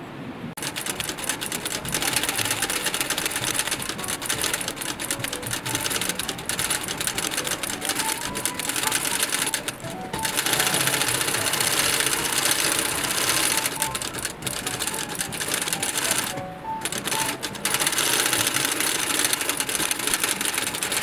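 Industrial sewing machine stitching leather, running in quick, even needle strokes. It starts about half a second in and stops briefly twice, about halfway through and again a few seconds before the end.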